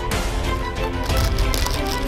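Background music: sustained notes over a deep bass.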